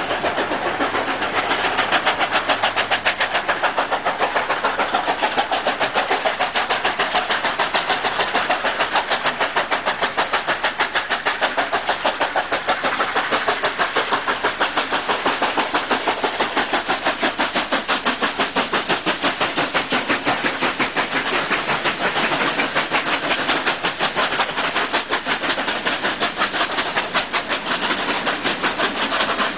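Two steam locomotives, NSWGR 36 class 4-6-0 No. 3642 and 59 class 2-8-2 No. 5910, double-heading up a steep grade and working hard: their exhausts give a fast, even run of beats from both engines as they come close and pass near the end.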